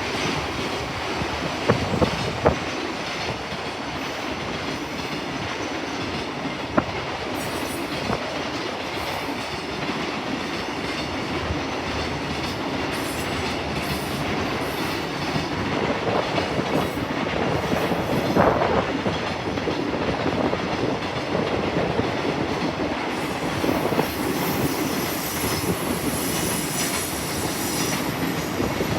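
A train running along the tracks past the platform, a steady rumble of wheels on rail with sharp clicks as wheels cross rail joints, a few near the start and one about 7 seconds in.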